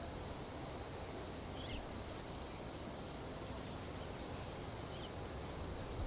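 Steady outdoor background noise at a marsh, with a few faint, brief high chirps about one and a half to two seconds in and again past five seconds.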